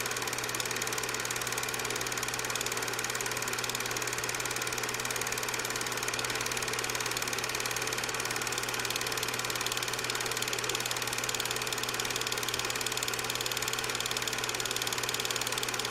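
A steady mechanical hum with a fast, even rattle that does not change.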